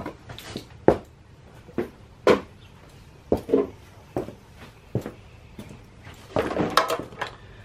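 Scattered sharp clicks and light knocks, about a dozen at uneven spacing, with a short rustling clatter near the end: motorcycle parts and tools being handled during reassembly.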